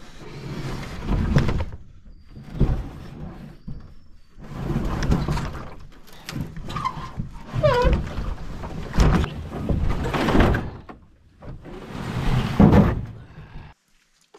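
Canoe hull being hauled in repeated pulls over logs and rocks, scraping and thudding in about six separate drags of a second or two each. A few short squeaks come about seven to eight seconds in.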